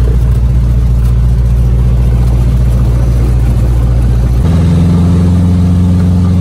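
Cessna's piston engine and propeller running steadily, heard inside the cabin. About four seconds in the engine note changes abruptly to a higher pitch.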